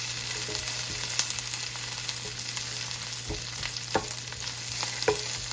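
Sliced red and green bell peppers sizzling steadily in hot oil in a skillet, with a few light clicks, like a utensil touching the pan as they are stirred, about three seconds in and again near the end.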